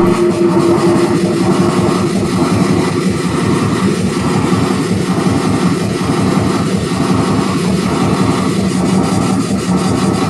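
Loud, dense electronic drone from a keyboard synthesizer: a noisy wash over two steady low held tones, with a faint sweep repeating about once a second.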